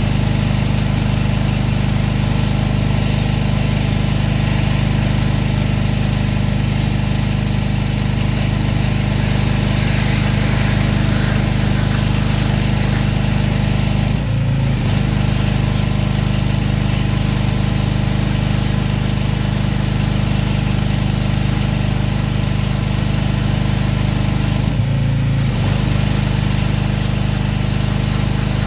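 Gas-engine pressure washer running steadily, its engine note under a steady hiss. Twice, about halfway through and near the end, the hiss drops out and the engine note shifts for about a second.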